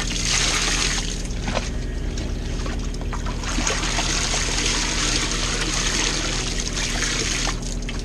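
Water trickling and splashing as soaked laundry is lifted out of a tub, dripping, and pushed into a compact washing machine, over a steady low machine hum.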